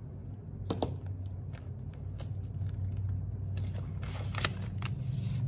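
Rustling and scattered sharp clicks of a ring binder's plastic zip pockets and paper bills being handled, as the pages are turned and cash is taken out, over a steady low hum.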